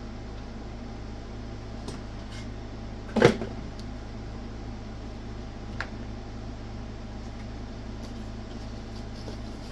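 A steady low electrical hum, with a few light clicks and one loud clunk about three seconds in, from probes and gear being handled on a workbench.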